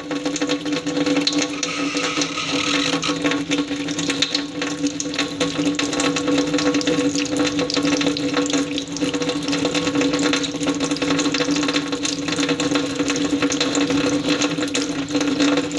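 Water tap running steadily into a sink: an unbroken splashing hiss with a steady low tone ringing beneath it.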